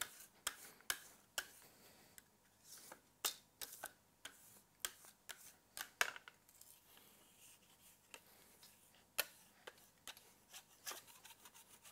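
Knife blade and a metal scraper scraping and tapping on a granite worktop as tabled dark chocolate is scraped up: an irregular string of sharp clicks and short scrapes, loudest about six seconds in and again about nine seconds in.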